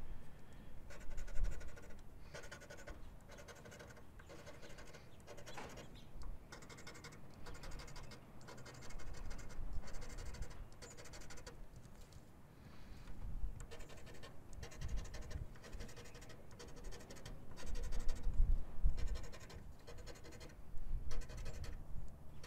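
Scratch-off lottery ticket being scratched: quick rough scraping strokes in short runs with brief pauses, with dull low bumps now and then.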